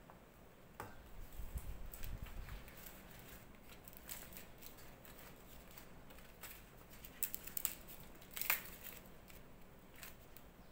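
Large green leaves crackling and crinkling as they are handled and folded around a portion of rice, with scattered sharp clicks and taps from a wooden spatula and the metal pot. A cluster of louder clicks comes a little past seven seconds, and the loudest near eight and a half seconds.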